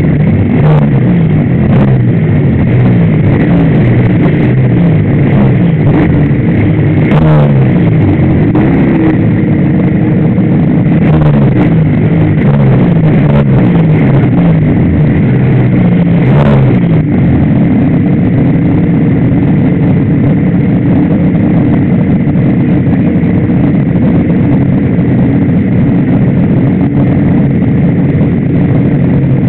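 Suzuki RGV250 two-stroke V-twin race bike idling close to the microphone, with a couple of brief throttle blips, among other race motorcycles waiting with engines running.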